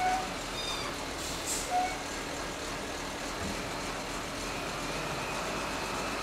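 Diesel engines of a wheel loader and a dump truck running steadily while the loader moves, with a brief hiss about a second and a half in.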